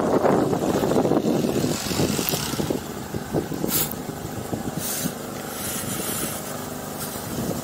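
A steady engine hum runs throughout, with light footfalls on a wooden boardwalk. Wind buffets the microphone for the first couple of seconds.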